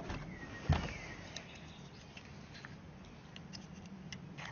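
Hands handling cast orgonite pieces and their moulds: one dull knock under a second in, then scattered light clicks and taps.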